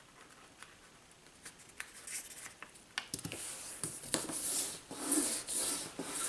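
A sheet of plain white paper being folded in half lengthwise and creased by hand: light taps at first, then rustling and rubbing, louder from about three seconds in.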